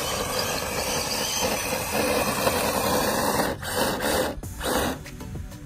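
Electric motors and drivetrains of two Traxxas RC cars, a TRX-4 Sport crawler and a Ford GT, running flat out under load in a tug of war, a steady hissing whir. The Ford GT cannot move the crawler, so it is straining against the line. The whir breaks off briefly twice in the second half and drops away near the end.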